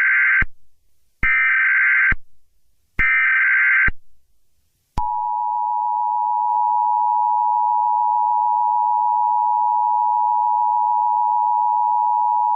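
Emergency Alert System SAME header: the end of one burst of screechy digital data tones, then two more bursts of about a second each with short gaps between them. About a second later the EAS attention signal starts, a steady harsh two-tone beep that holds without a break.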